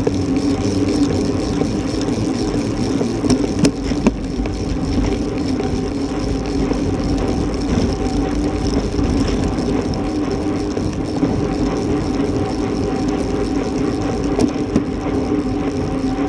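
Wind and road noise picked up by a bicycle-mounted camera on a road bike moving at about 16 to 26 mph: a steady rushing drone, with a few sharp clicks around three to four seconds in.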